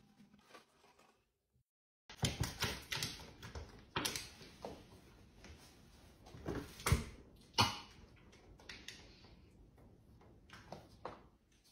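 Bengal cat pawing at a stainless-steel refrigerator door: a run of taps and knocks, with a few sharper knocks around the middle.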